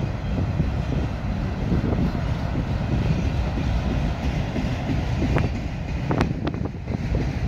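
Cars of a mixed freight train rolling past: a steady rumble of steel wheels on the rails, with a few sharp clanks about five to six and a half seconds in. Wind on the microphone.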